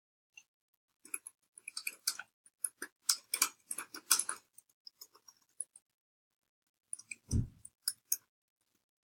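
Irregular small clicks and ticks in two clusters, a dense run early and a shorter run later, with one soft low thump about seven seconds in.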